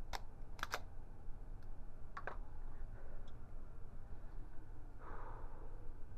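A few sharp clicks, two of them close pairs, over a steady low hum, with a soft breath-like hiss about five seconds in.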